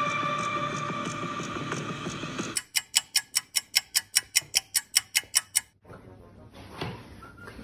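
A steady held tone for about two and a half seconds, then fast, even ticking like a clock or timer, about five ticks a second for about three seconds, which stops abruptly.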